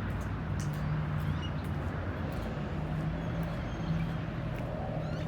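Steady road traffic noise with a low hum that comes and goes, and faint, irregular light steps of someone walking.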